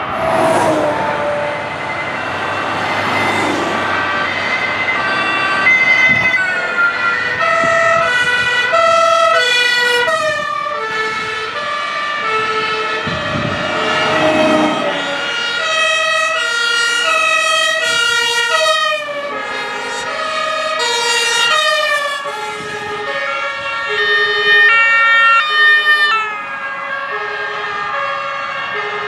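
Several German two-tone emergency vehicle sirens (Martinshorn) sounding at once, out of step with each other, each stepping back and forth between a high and a low note. Vehicle noise rushes past in the first seconds and again about halfway through.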